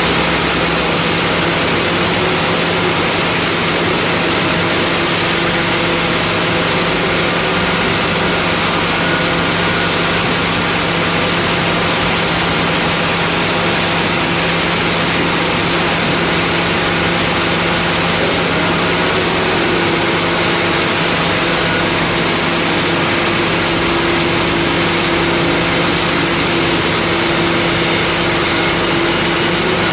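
An engine running steadily under a loud, even hiss, with a constant low hum; a second, higher hum joins about twenty seconds in.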